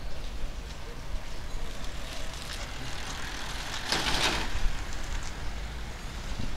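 Outdoor street background noise: a steady low rumble, with a short rushing swell of noise about four seconds in.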